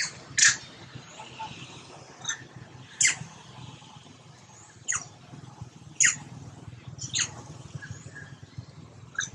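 Short, sharp, high-pitched animal chirps, about eight at irregular intervals of one to two seconds, each dropping quickly in pitch, over a steady low hum.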